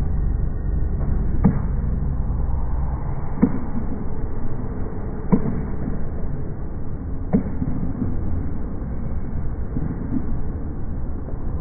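A basketball thudding on the court, four clear knocks about two seconds apart, with a few fainter ones later, over a steady low rumble.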